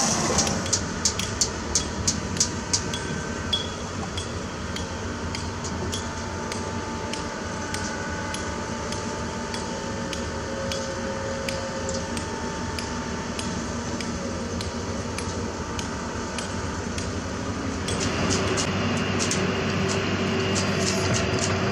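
A quick run of sharp metallic clinks, about seven in the first few seconds, then heavy machinery running with a steady drone. Near the end the sound changes and light metal clicks return, the kind made when steel wire is tied on a rebar cage.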